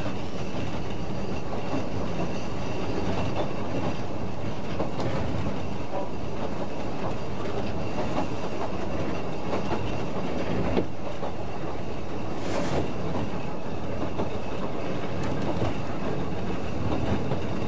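Ffestiniog Railway narrow-gauge train running, heard from inside the carriage: a steady rumble of wheels on the track with occasional short knocks.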